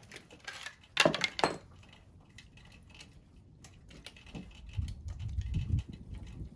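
Metal hand tools and bolts being handled: two sharp clinks about a second in, then scattered light ticks, and low, uneven rubbing and handling noise near the end.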